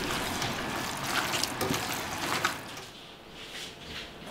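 Wet, squelching sounds of meat being mixed by hand in a metal pot, with a few light clicks, going quieter about three seconds in.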